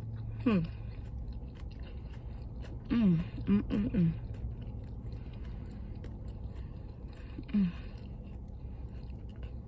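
A person chewing a mouthful of fast food close to the microphone: soft crunching and wet mouth clicks, with a few short hummed voice sounds in between.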